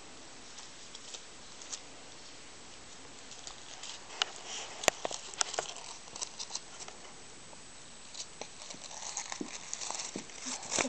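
Crinkly soft toy rustling and crackling as a baby grabs and squeezes it, in short irregular crackles with a sharp snap about five seconds in, thickest around the middle and again near the end.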